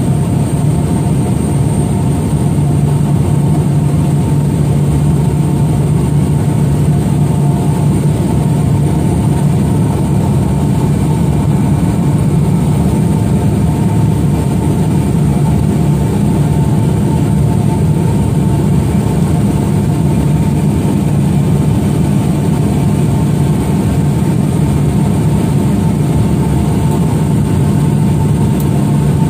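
Small propeller aircraft's engine running steadily, a loud unbroken drone as heard from inside the cabin in flight, with a thin high whine over it.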